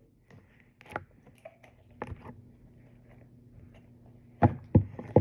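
Money being gathered up by hand: scattered light clicks and knocks, with a few louder knocks near the end.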